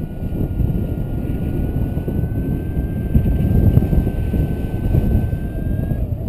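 Wind buffeting the microphone of a paraglider pilot's camera in flight, a loud, unsteady low rumble. Under it a faint steady high tone wavers slightly in pitch and stops shortly before the end.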